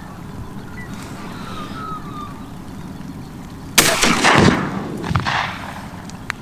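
A shotgun shot about four seconds in, a loud crack with a long fading tail, followed about a second and a half later by a fainter bang.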